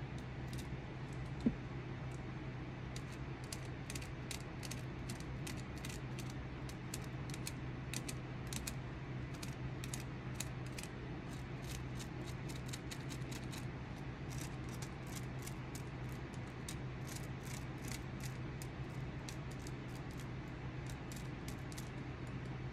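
Small hand carving tool cutting and scraping the wood of a walking stick: a run of short, crisp strokes at an uneven pace, a couple a second, with one sharper tick about a second and a half in, over a steady low hum.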